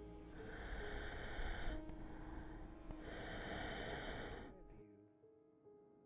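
Soft piano music, with two long, heavy breaths over it, each lasting about a second and a half.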